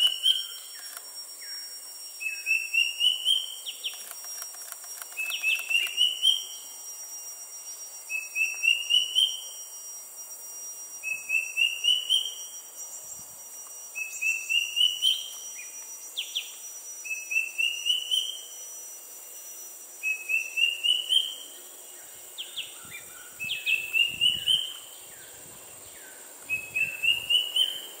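Square-tailed drongo-cuckoo (Surniculus lugubris) calling: a short run of six or seven whistled notes climbing step by step in pitch, repeated about every two to three seconds, some ten times.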